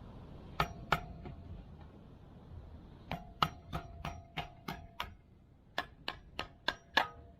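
Sharp metal-on-metal taps with a short ringing tone: two, then a run of about a dozen at roughly three a second. This is a tool being struck against a motorcycle part that is stuck on too tight.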